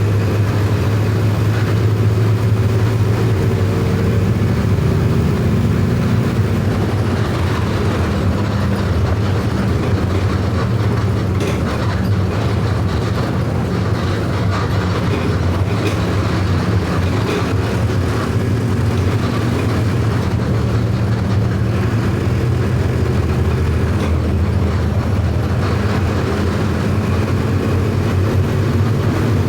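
Mercedes-Benz OF 1519 bus's four-cylinder electronic diesel engine running on the road, a steady drone whose pitch shifts a little now and then as the revs change.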